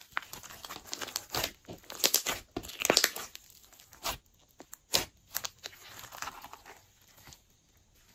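Glossy slime being stretched and pressed by hand, making irregular sticky crackles, clicks and pops. The pops come thickest a couple of seconds in and again around the middle, and thin out near the end.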